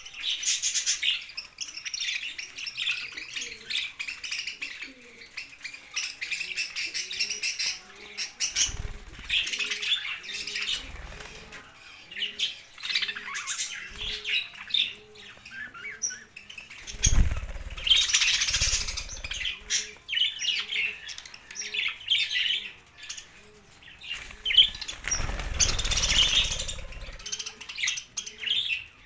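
A flock of budgerigars chattering and chirping continuously, a busy overlapping twitter. Louder rustling bursts come in three times, at about a third, two thirds and near the end, in the manner of wing flutter.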